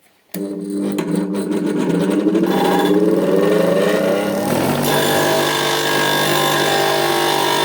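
Electric power-tool motor switched on, its pitch rising as it spins up over about four seconds, then running at a steady speed.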